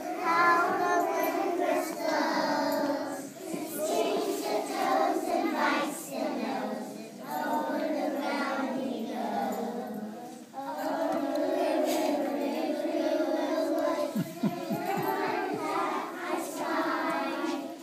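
A group of young children singing a song together, in phrases a few seconds long.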